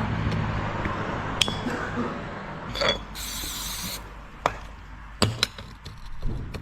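Metal parts and tools clinking and tapping during shop repair work. A steady low hum sounds for the first couple of seconds, and about three seconds in there is a one-second hiss of spray, as from an aerosol lubricant.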